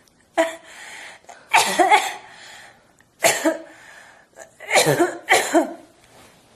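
A person giving forced, barking coughs: harsh bursts with sudden onsets, coming singly and in pairs about every second and a half.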